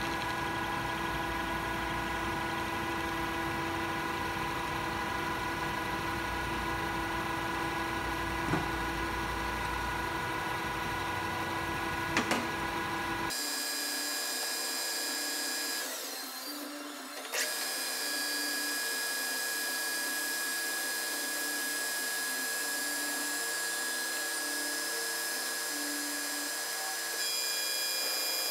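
Metal lathe turning a large steel flywheel blank with a carbide insert: a steady machine whine with several held tones and the noise of the cut. About halfway through, the deep low rumble drops out abruptly while the whine carries on.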